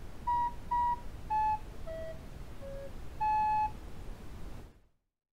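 A short tune of six electronic beeps: two equal high notes, three stepping lower, then a longer note back up. A steady hiss sits underneath and cuts off suddenly near the end.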